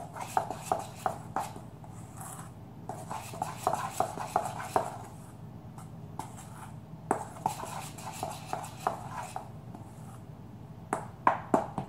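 Metal spoon stirring dry flour in a stainless steel bowl, scraping and clinking against the bowl in irregular bursts, with a few sharper clicks near the end.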